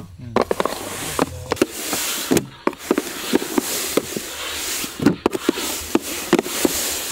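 Wooden sticks tapping and scraping on a large aluminium plate as sugar syrup is pulled and folded by hand for soan papdi: irregular sharp clicks and knocks, a dozen or more, over a steady hiss.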